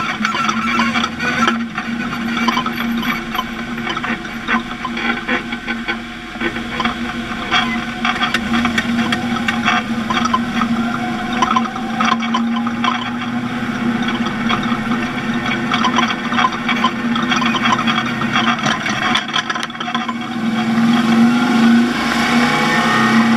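Off-road race vehicle's engine running at a fairly steady speed while driving, with frequent knocks and rattles over it; the engine note climbs a little near the end.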